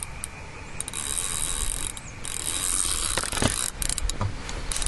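Fishing reel's free-spool ratchet clicking fast as line is pulled off: a fish has taken the bait and is running. The clicking breaks off briefly a few times.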